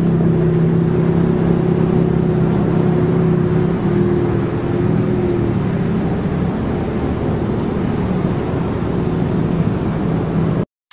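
A car driving, heard from inside the cabin: a steady engine hum over road and tyre rumble. The hum fades about halfway through, leaving the rumble, and the sound cuts off abruptly just before the end.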